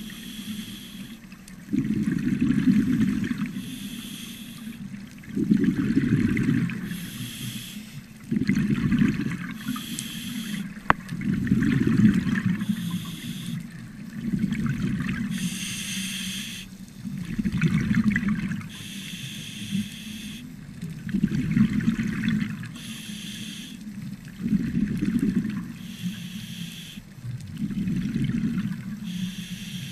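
Scuba regulator breathing heard underwater: a hissing inhale through the demand valve, then a low rumbling rush of exhaled bubbles, repeating steadily about once every three seconds. One sharp click sounds near the middle.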